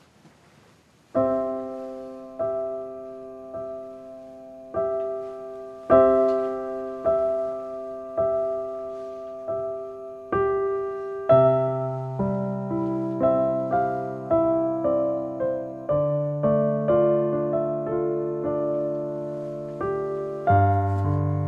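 Slow piano background music. It starts about a second in with a chord struck again and again, each one dying away. About halfway through, lower bass notes and a busier melody join in.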